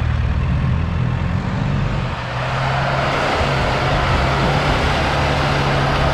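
Off-road vehicle's engine running steadily under load, with a broad rushing noise building from about two seconds in.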